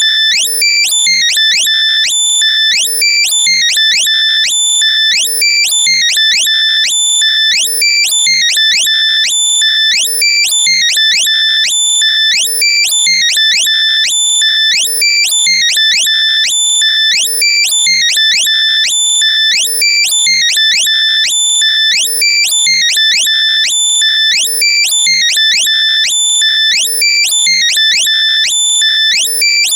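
Loud, compressed synthesized alert sound: high-pitched rising chirps and held beeping tones in a pattern that repeats about every two seconds. It is a locator sound played through earbuds so that lost ones can be found by ear.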